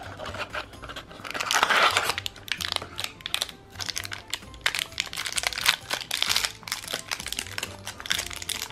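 Metallic foil blind bag being torn open and crinkled by hand, a run of irregular crackles and rustles, loudest about two seconds in.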